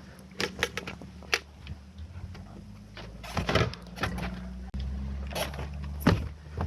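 Knocks, clunks and rattles of electric rental scooters being handled and lifted out of a car, with a louder scrape about halfway through and sharp knocks near the end.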